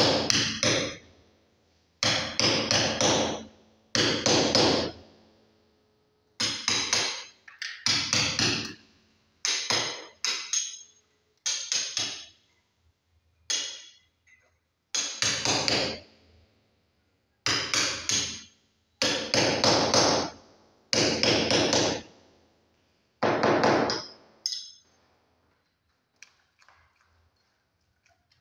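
Hammer driving a chisel into a masonry wall to cut a recess for electrical wiring. Quick runs of sharp blows come in about a dozen bursts of roughly a second each, with short pauses between, and stop near the end.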